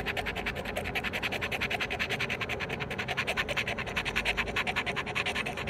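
Scratch-off lottery ticket having its coating scraped away with a metal edge, in quick, even back-and-forth strokes, about eight to ten a second.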